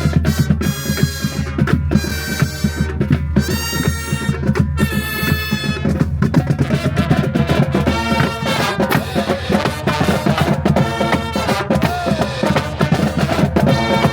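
Marching band playing: drums beat steadily under a run of held horn chords, about four blasts in the first few seconds, then a busier moving tune.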